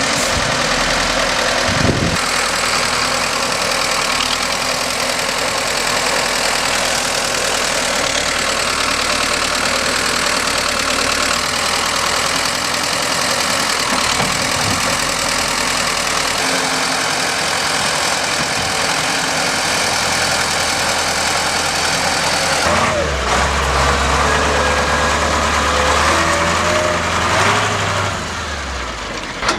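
Heavy diesel machinery running, a steady engine noise throughout. A deeper engine note comes in for a few seconds near the end.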